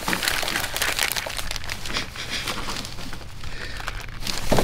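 Thin plastic shopping bag crinkling and rustling as a hand rummages around inside it, in irregular bursts.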